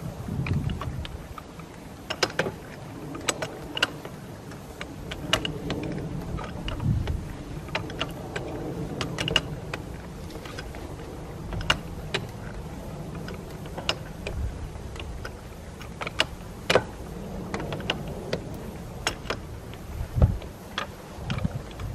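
1890s Atlas automatic steam engine running under a low rumble, with irregular sharp metallic clicks and knocks from a wrench on its valve linkage. The valve gear is being field-adjusted because the valve timing is off when the engine runs on its governor.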